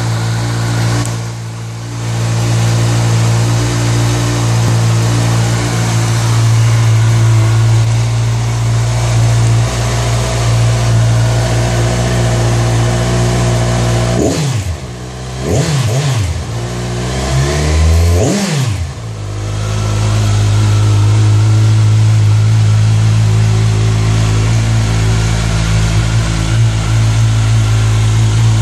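A 2014 Kawasaki Z1000's inline-four engine with its stock exhaust idling steadily, blipped a few times in quick revs about halfway through before it settles back to idle.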